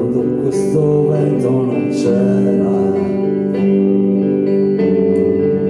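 Amplified electric guitar playing slow, sustained chords that change every second or so.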